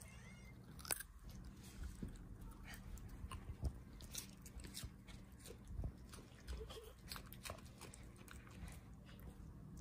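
Chihuahua crunching and chewing a piece of raw carrot: a run of short, crisp crunches at irregular intervals.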